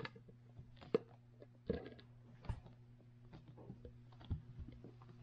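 Quiet scattered clicks and light knocks from handling a plastic epoxy resin jug and a plastic mixing cup while the resin is poured, over a steady low hum.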